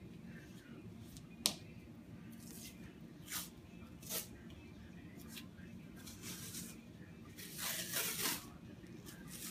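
Athletic tape being pulled off the roll and torn while an ankle is taped: a sharp rip about a second and a half in, two shorter rips a little later, and a longer ripping pull of tape about eight seconds in.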